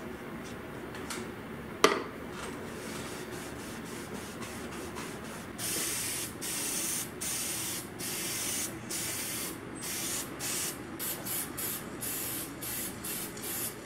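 Aerosol can of spray lacquer hissing in a series of short bursts over a wooden box, starting about five seconds in and coming in shorter, quicker bursts toward the end. A single sharp click comes about two seconds in.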